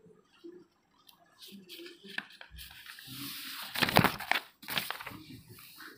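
Paper pages of a printed book rustling and crackling as they are handled and turned, loudest about four seconds in.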